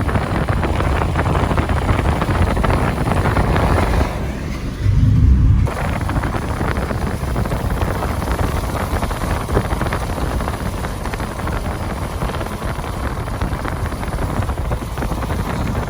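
Wind rushing past and buffeting the microphone at an open window of a moving car, over the car's road noise. About four seconds in, the rush briefly thins and a heavy low buffet takes over for a second or so before the steady rush returns.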